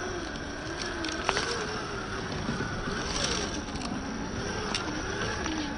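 Traxxas TRX-4 RC crawler's electric motor and drivetrain whining, the pitch wavering up and down with the throttle, over a steady rustle with a few sharp clicks.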